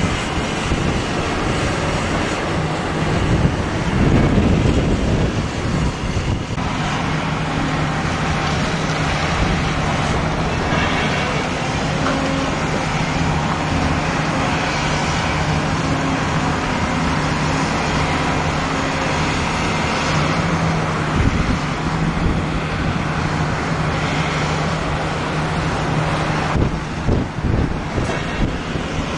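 A steady engine hum under a rushing noise, a little louder about four seconds in and unsettled near the end.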